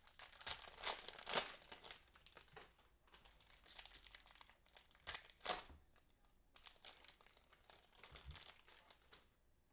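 Cellophane wrapper of a trading-card cello pack crinkling and tearing as it is handled and opened, in three bouts of crackling that stop just before the end.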